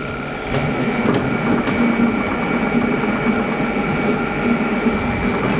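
Cobbo 7 kitchen robot running at speed 3, its motor turning the blade to stir and heat butter, brown sugar, water and cocoa to 90 °C. A steady mechanical whir with a few steady high tones over it.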